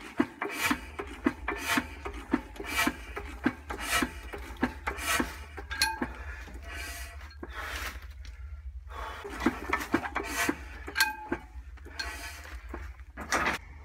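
McDonald Imperial Super Diesel single-cylinder engine being turned over by hand crank without firing. Each turn gives a short rasp, about twice a second, with a brief pause about two-thirds of the way through, over a steady low hum.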